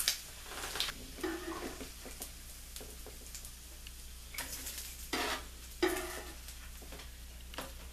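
Bacon grease sizzling and popping in a nonstick frying pan with the burner just turned off, while a utensil scrapes and taps against the pan a few times as the bacon strips are lifted out.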